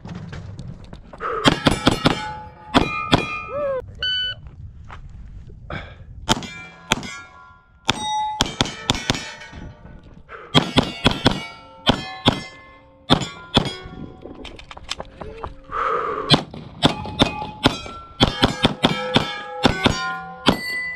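Glock 45 9mm pistol fired in fast strings at steel targets, each hit followed by the ringing of the struck steel plate. The shots come in several bursts with short pauses between them.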